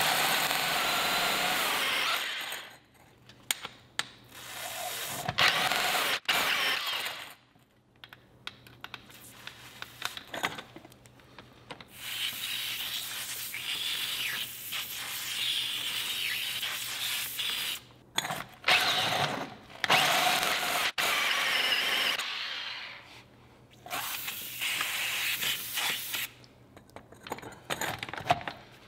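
DeWalt D25313K SDS-plus hammer drill in rotation-only mode spinning a diamond core bit into a concrete wall, a wet grinding sound. It runs in stretches of a few seconds with short pauses between.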